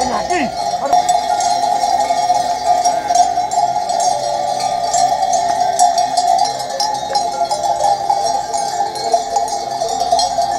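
Many bells worn by a grazing flock of sheep, clanking and jingling continuously and unevenly as the animals move and feed. A sheep bleats once right at the start.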